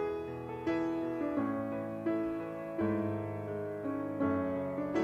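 Background piano music: notes and chords struck about every three-quarters of a second, each fading before the next.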